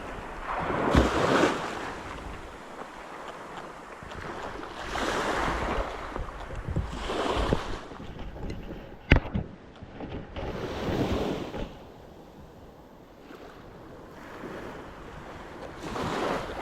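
Sea waves washing in, the rush of water swelling and falling about five times, with some wind on the microphone. A single sharp click about nine seconds in.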